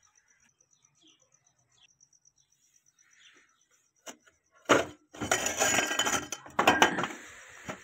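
Metal clattering and scraping as an old, dirt-caked electric forge blower is hauled out from among scrap metal. It starts about four seconds in with a couple of sharp knocks, then turns to loud, dense rattling that fades near the end.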